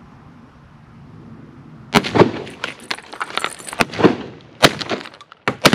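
Semi-automatic shotgun firing three shots: the first about two seconds in, the second near the middle, the third near the end. A dense clatter of smaller sharp sounds runs between the shots.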